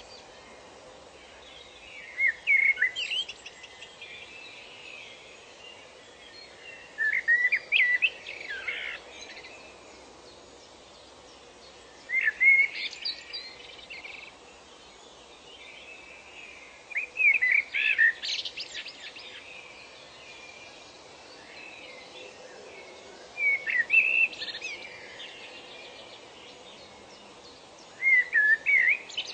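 A songbird singing short phrases of quick, high chirping notes, one phrase about every five seconds, over a steady faint background hiss.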